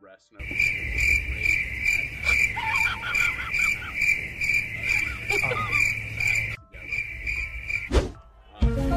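Cricket chirping: a steady high trill pulsing about three times a second, breaking off briefly near the end. A short sharp knock comes just before the end.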